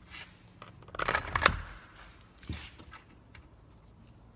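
A long metal bolt and washer being handled and fitted through a tricycle's rear wheel: small clicks, with a brief clicking rattle about a second in and a lighter knock later.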